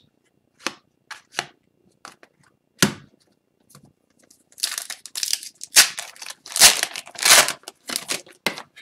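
A few light taps and clicks as a stack of trading cards is handled. Then, about halfway through, an Upper Deck Series 2 hockey card pack's foil wrapper is torn open and crinkled.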